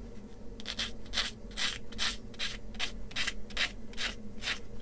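Sanding stick rubbed back and forth on a small plastic model-kit part in quick, even strokes, about three a second, starting about half a second in.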